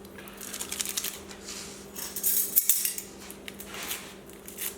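Metal spoon clinking and scraping against dishes in three short bouts while a teaspoon of sugar is measured out, the sharpest clink a little past halfway.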